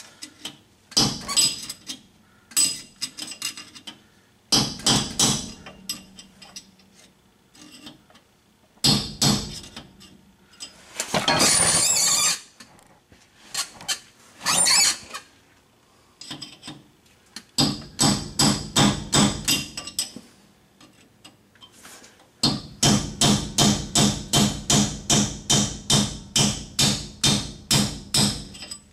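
Hammer blows on a drift, knocking a pinion bearing race out of a Dodge 9 1/4 axle housing. Sharp ringing metal strikes come in short quick runs, with a harsher rattling burst about a second long midway. Near the end comes a steady run of about sixteen strikes, roughly three a second.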